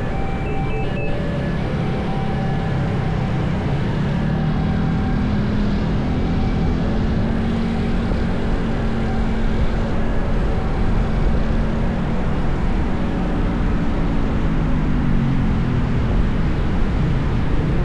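City road traffic: steady tyre and engine noise, with one vehicle's engine rising in pitch a few seconds in and falling away near the end. A few short high tones come in the first second.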